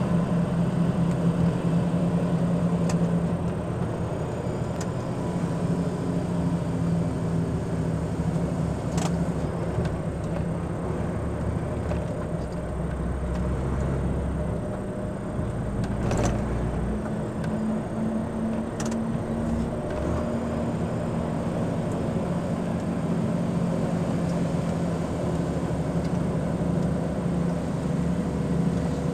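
A car's engine running and its tyres on the road, heard from a dashcam while driving at about 30–40 km/h. The engine note drops and then climbs again midway through, and a few sharp clicks sound now and then.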